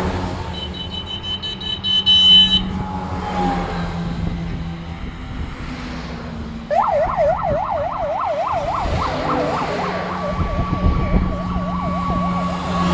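Convoy vehicles driving past with a steady engine drone. A high tone sounds for about two seconds near the start. From about seven seconds in, an escort vehicle's siren yelps rapidly up and down, then settles into a steady high tone near the end.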